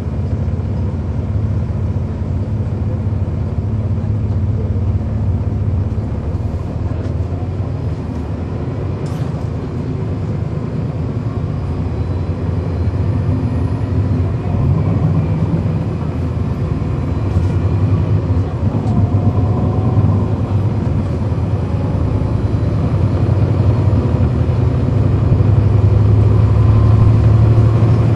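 Cummins ISL9 inline-six diesel of a 2010 NABI 40-foot suburban transit bus, heard from on board while the bus is under way: a steady low drone that grows louder over the last several seconds.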